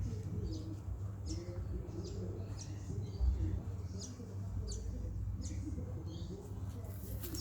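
Small birds chirping, with short high falling chirps repeated every second or so over a low steady background rumble.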